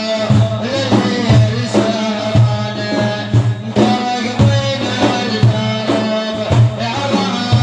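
Instrumental music with no singing: a repeating low drum beat under a sustained melodic line, the backing of an Iraqi sung praise song.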